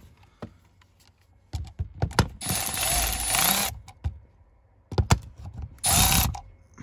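Red cordless power tool running in two bursts as it backs out the 8 mm bolts of the lower dash panel: the first run lasts over a second, the second about half a second, with clicks and knocks of socket and bolt around them.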